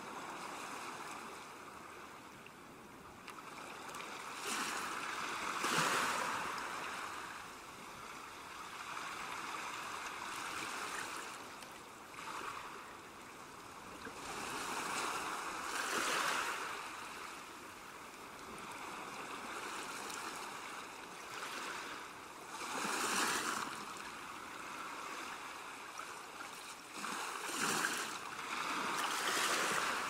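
Ocean surf: waves breaking and washing onto a shore, a steady rush that swells and falls away as each wave comes in, with four or five louder breakers.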